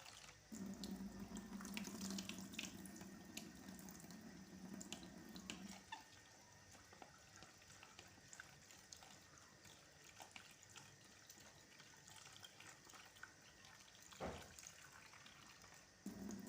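Water tap running into a basin as bilimbi flowers, leaves and fruit are rinsed under it. The flow starts about half a second in, stops about six seconds in, and comes on again near the end, with small splashes and handling clicks in between.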